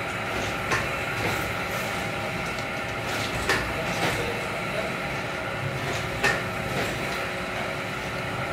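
Paper plate making machine running with a steady hum, its press giving a pair of sharp clacks about every three seconds.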